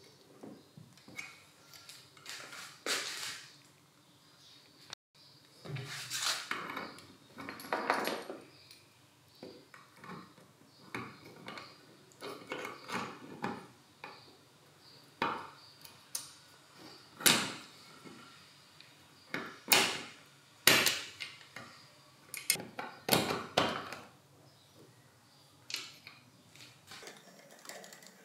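Small metal parts of a Makita HR2451 rotary hammer drill's gear housing clinking and clicking as they are fitted together by hand: an irregular run of sharp metallic clicks and knocks, a few of them much louder than the rest.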